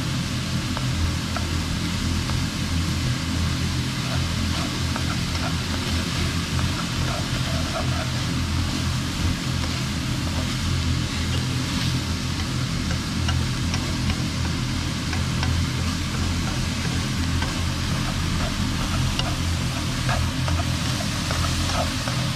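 Minced pork with shiitake mushrooms and onion frying steadily in a wok as it is stirred with wooden chopsticks, with light clicks of the chopsticks against the pan. A steady low hum runs underneath.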